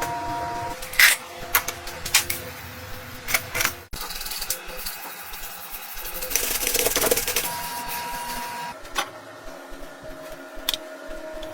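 Workshop sounds of hands-on work on motorcycle parts: a run of sharp clicks and knocks over a steady whine, a sudden break about four seconds in, then a longer noisy rushing stretch before the whine returns near the end.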